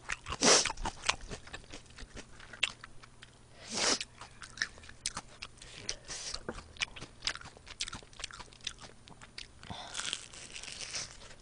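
Close-miked crunching and chewing of crispy fried food: many sharp crackling bites, with a few louder crunches about half a second in, around four seconds in and near the end.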